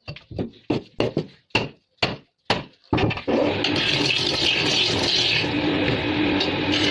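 About eight sharp knocks in quick, uneven succession on wood, then, about three seconds in, a steady rasping noise of a tool working wood begins.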